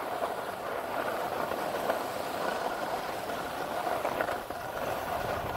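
Skis sliding and scraping over packed snow, a steady hiss that goes on without a break.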